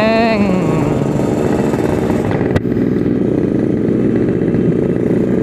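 Yamaha RX-King's two-stroke single-cylinder engine running steadily as the motorcycle cruises along a road, heard from the rider's seat. There is a sharp click about halfway through.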